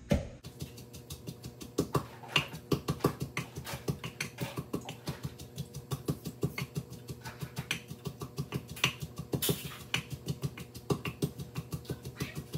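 Wooden pestle pounding in a mortar, about four strokes a second, crushing roasted chillies, shallots and garlic into a chilli paste.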